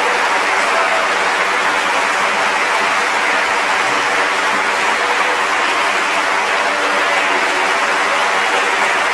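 An audience applauding, steady and unbroken.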